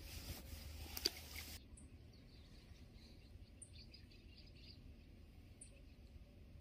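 Near silence: a faint rustle with a single click in the first second and a half, then faint high bird chirps every couple of seconds.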